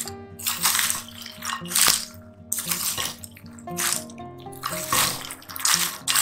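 Popcorn being stirred and tossed with a silicone spatula in a glass bowl, rustling in irregular bursts every half second or so, over background music with soft held notes.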